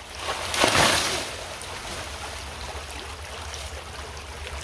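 A guineo majoncho banana plant falling after being cut, its big leaves and trunk crashing down once, about half a second in. After that a small creek trickles steadily.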